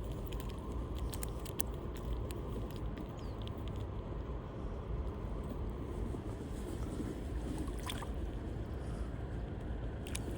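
Steady low rushing outdoor noise with a few faint clicks.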